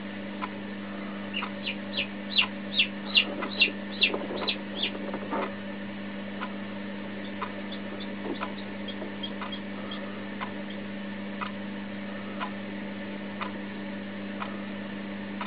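Newly hatched Marans chick peeping: a quick run of loud, high, falling peeps from about a second and a half in to about five seconds, then fainter, sparser peeps, over a steady low hum.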